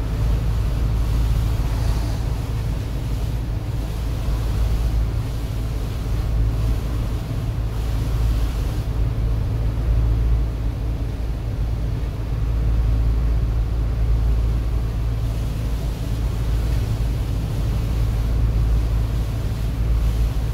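Car driving on a rain-wet highway, heard from inside the cabin: a steady low rumble of engine and road noise with the hiss of tyres on the wet surface.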